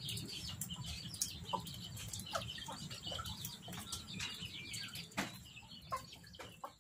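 Chickens clucking in short, scattered calls, with small sharp clicks among them.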